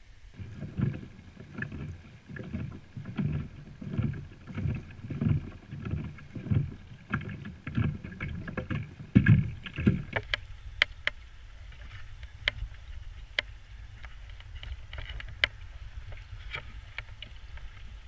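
Kayak moving through calm water under its own power: regular strokes, about one and a half to two a second, each with a low swish of water. About halfway through this gives way to a steady low rumble with scattered sharp clicks.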